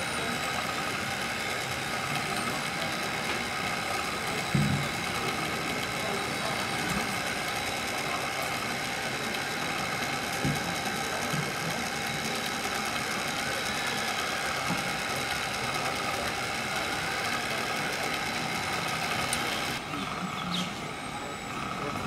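Radio-controlled scale wheel loader running with a steady mechanical whine made of several held tones, and a few soft knocks as it works the soil. The high whine drops away near the end.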